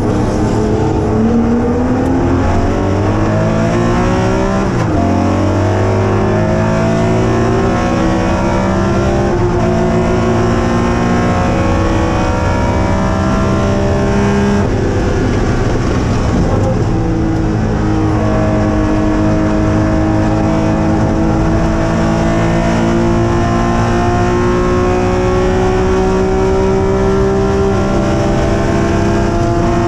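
Porsche 911 RSR's flat-six race engine at full throttle, its pitch climbing in each gear and dropping sharply at several quick upshifts, then a long pull in a high gear with a brief drop near the end.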